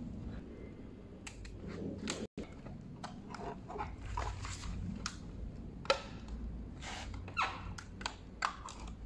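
Hands working an electric scooter's wiring and plastic controller cover: wires rustling and plastic knocking and clicking as the cover is pushed into place. There are a few sharper clicks in the second half, and the sound breaks off for a moment about two seconds in.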